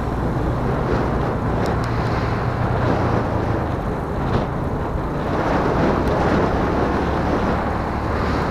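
A vehicle's engine running steadily while driving along a road, with wind noise on the microphone.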